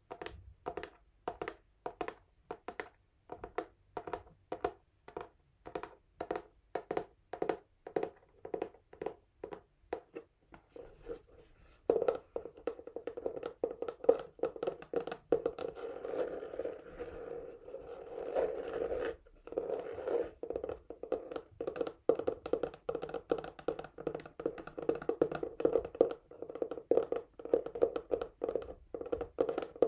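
Fingernails on a textured cardboard box: slow, evenly spaced strokes, about two or three a second, then from about twelve seconds in, fast continuous scratching with one brief pause.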